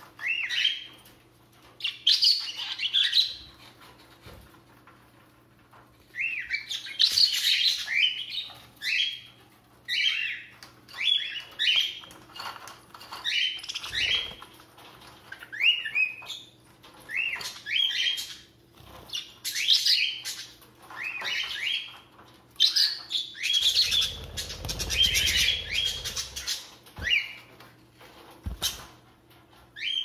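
Budgerigars chirping and chattering in short, quick bursts of high calls, one after another every second or so. About two-thirds of the way through, a few seconds of rustling noise mix in under the calls.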